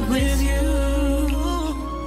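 Background music: a melody with a wavering pitch held over sustained bass notes.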